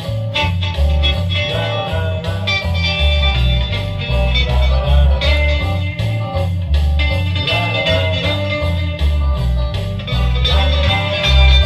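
Background music: guitar over a steady bass beat.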